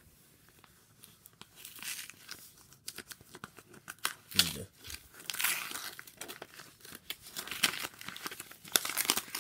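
A paper envelope being torn open by hand: crinkling and rustling paper with short, sharp rips, starting about a second in.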